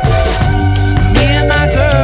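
Background music with a steady bass line, a drum beat and a melody that bends in pitch in the second half.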